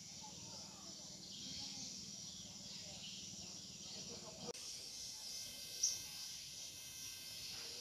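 Outdoor ambience of a riverbank: a steady high insect drone with faint distant voices underneath. It changes abruptly about halfway through, and a short high chirp sounds about six seconds in.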